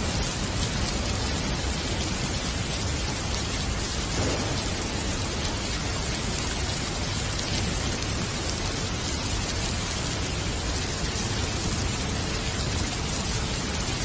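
Steady rain falling, an even, unbroken hiss that holds the same level throughout.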